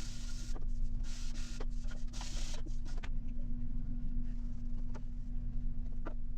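A small electric power tool running with a steady hum. Repeated bursts of scratchy hiss come in the first half, then die down to the hum and a few light clicks.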